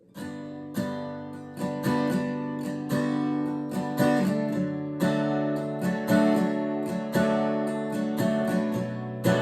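Martin acoustic guitar strummed in a steady rhythm of ringing chords, with no singing.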